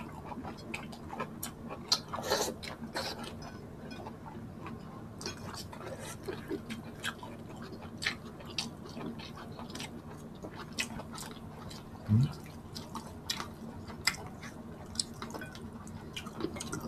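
Close-up eating sounds of a person eating salmon-head and shrimp sinigang: wet chewing and mouth smacks, with many irregular small clicks. There is one short, low vocal sound about three-quarters of the way through.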